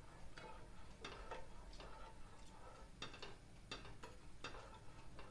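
A spoon stirring milk in a metal pot, clicking and scraping against the pot's side and bottom. The clicks are faint and come about once or twice a second.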